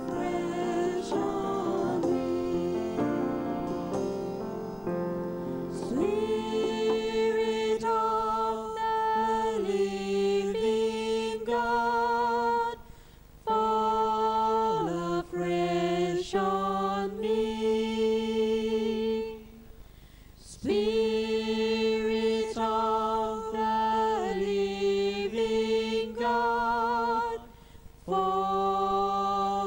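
Small vocal group singing a worship song in harmony into microphones, holding long notes with vibrato and pausing briefly three times between phrases.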